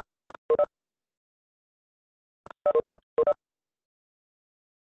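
Short electronic notification beeps from a video-call app, in quick double tones. One pair of double beeps comes at the start and another about two and a half seconds later, typical of an alert that a participant has joined the meeting.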